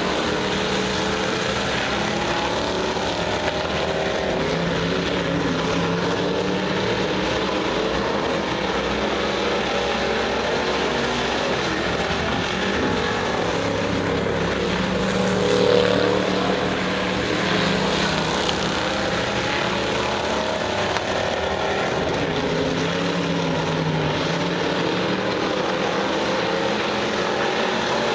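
Several dirt-track stock car engines running hard around the oval, a dense steady engine noise whose pitch wavers up and down as the cars lap. It swells loudest about halfway through as cars pass close by.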